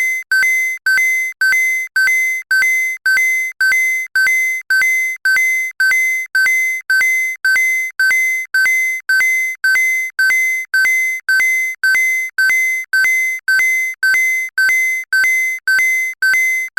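NOAA Weather Radio alarm-test tone signals: a short two-pitch electronic burst repeating about twice a second, the tones sent out to switch on weather-alert receivers during the weekly test.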